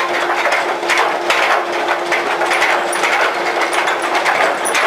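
A roadheader's cutting head grinding into the coal and rock face: a loud, dense rush of crushing and crackling. Under it runs a steady hum that stops near the end.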